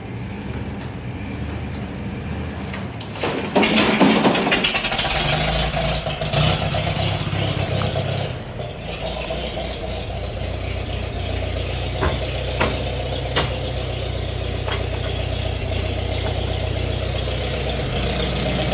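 A tractor with a blown-out starter being bump-started while towed in gear: its engine catches with a loud burst about three and a half seconds in and then keeps running steadily alongside the towing engine. A few sharp clicks follow about twelve to thirteen seconds in.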